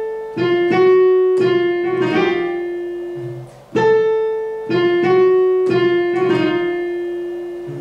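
Piano playing a short phrase of struck, held notes that fade after each strike; the phrase starts over about halfway through.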